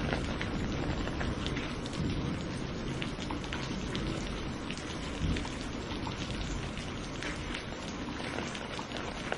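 Steady rain during a thunderstorm, with many separate drops ticking close by over a continuous low rumble. A brief low thump comes about five seconds in.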